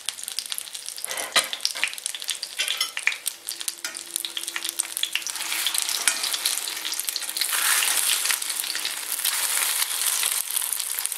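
Egg-dipped wafer and chicken-mince patties frying in sunflower oil in a stainless steel pan: a steady sizzle with many small crackling pops. The sizzle gets louder about halfway through, while the patties are turned over with a fork.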